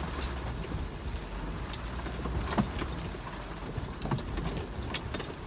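Inside a vehicle driving slowly over a rough, muddy dirt track: a steady low engine and road rumble with scattered knocks and rattles as it goes over the ruts.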